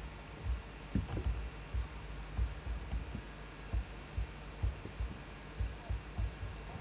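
Irregular dull low thumps, roughly one or two a second, over a steady low hum: bumps of a moving handheld camcorder on its built-in microphone.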